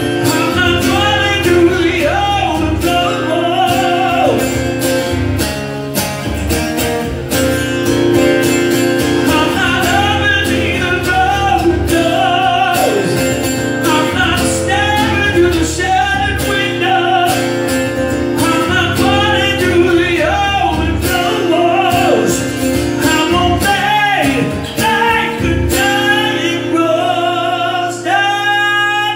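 Male singer performing a song live with his own strummed acoustic guitar. Near the end the guitar stops and he holds a high, wavering note.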